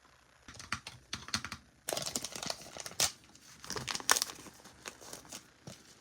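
Plastic wrapping crinkling and tearing in irregular bursts as a Zuru Mini Brands miniature is unwrapped, loudest in the middle.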